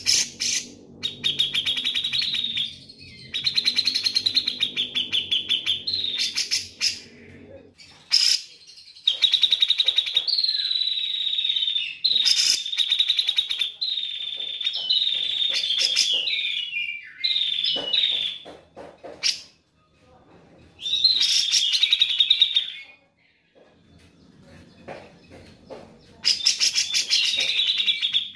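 Grey-cheeked bulbul (cucak jenggot) singing: several loud phrases of rapid, buzzy trilled notes, each lasting up to a few seconds, with short pauses between them.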